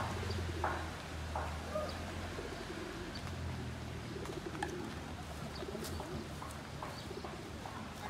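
Low cooing and hooting bird calls, with a few faint chirps, over a low steady hum.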